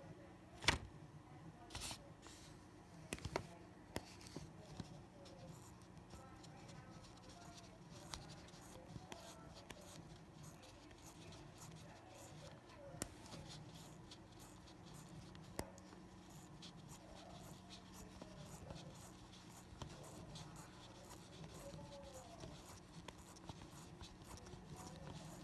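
Faint, regular ticking of a TAG Heuer Carrera automatic chronograph held close to the microphone, with a few louder clicks near the start.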